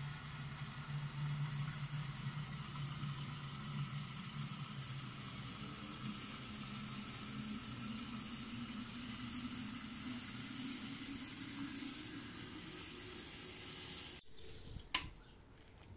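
Water running from a tap into a metal jug, a steady splashing hiss with a low tone that slowly rises in pitch as it fills. It cuts off suddenly near the end, followed by a single sharp click.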